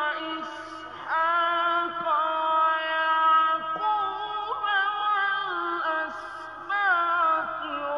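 A male reciter chanting the Quran in maqam Hijaz, in a slow, melodic style with long held, ornamented notes. The voice breaks off briefly twice, with a short hiss, and takes up a new phrase about a second in and again near seven seconds.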